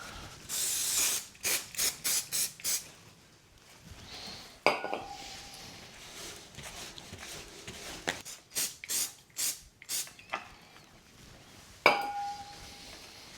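Aerosol brake cleaner sprayed in short hissing bursts and a shop cloth wiping a greasy bicycle disc brake rotor. Two sharp metallic clinks ring briefly, about a third of the way in and near the end.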